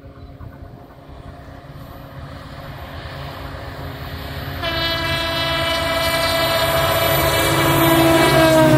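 Diesel locomotive hauling a passenger express approaching, its engine and wheels growing steadily louder. About halfway in, the horn starts one long blast that drops in pitch near the end as the locomotive passes.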